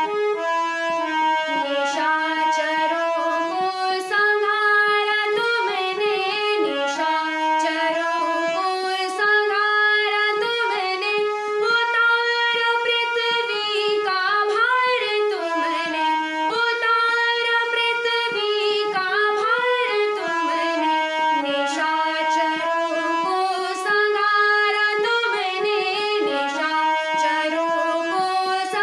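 A woman sings a Hindi Krishna bhajan to her own harmonium accompaniment. The harmonium's reeds hold sustained notes and chords under a voice that slides between pitches.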